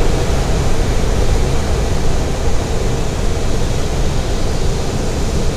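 Steady rush of air over a glider's canopy in free flight after tow release, with no engine, heard inside the cockpit as an even hiss over a low rumble.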